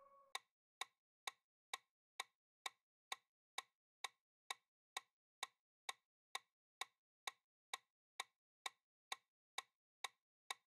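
Countdown timer sound effect: short, even ticks at about two a second, marking off the ten-second answer time. The last of a chime fades out just at the start.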